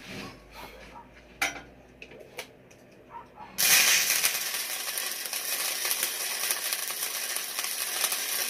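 Electric arc welding on a steel angle-iron bracket: after a few light clicks, the arc strikes about three and a half seconds in and sizzles and crackles steadily for about five seconds, then stops abruptly.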